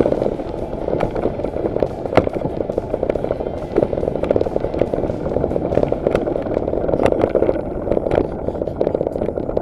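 Mountain bike rolling fast down a rough dirt and grass track: a steady rush of tyre and ground noise with constant rattling and sharp knocks from the bike over bumps.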